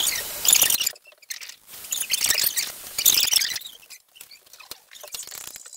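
Squeaky, scratchy scrubbing in three short spells, typical of a wet brush or towel working the paint pans of a watercolour paint box.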